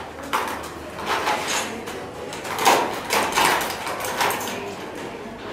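Students packing up: a run of short rustling and sliding sounds from a laptop being slipped into its case and school bags being handled.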